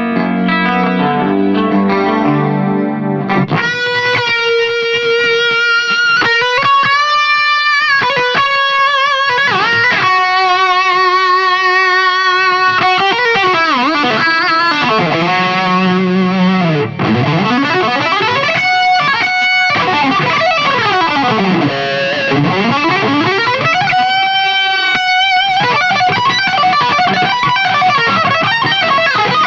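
Fernandes seven-string electric guitar played through a distorted amp: a chordal passage for about three seconds, then a lead line of sustained, bent notes with vibrato. In the middle the pitch swoops down and back up several times.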